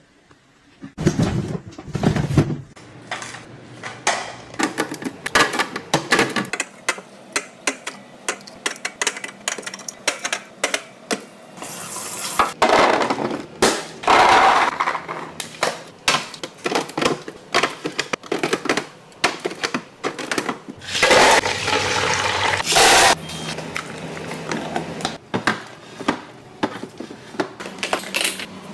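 Kitchen containers and dishes being handled: many clicks, knocks and clatters as things are picked up and set down, with two longer rushing noises about twelve seconds in and again about twenty-one seconds in.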